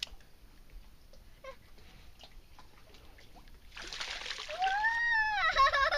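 A hooked largemouth bass thrashing and splashing at the water's surface, starting about two-thirds of the way in. Over the splashing comes a louder high cry that rises, then falls and wavers near the end.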